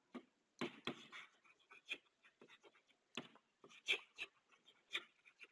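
Chalk writing on a blackboard: a run of faint, sharp taps and short scratchy strokes as letters are written.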